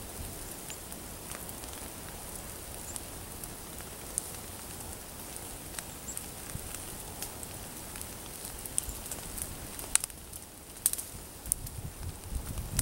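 Open wood fire of split logs burning, with a steady hiss and scattered sharp crackles and pops that come more often near the end.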